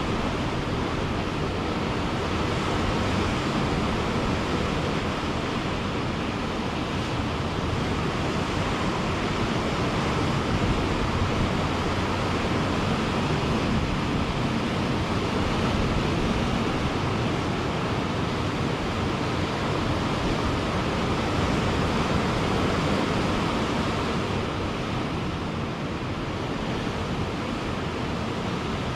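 Ocean surf breaking in a steady, continuous wash, with no single wave standing out.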